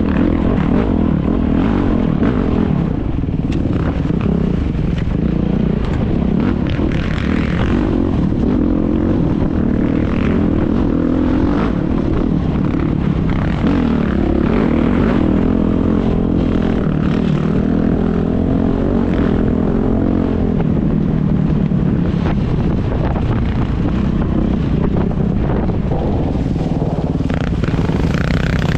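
Dirt bike engine running on a trail ride, its pitch rising and falling as the throttle opens and closes.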